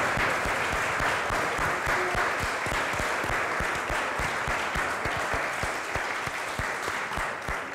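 Audience applauding, the clapping easing off gradually toward the end.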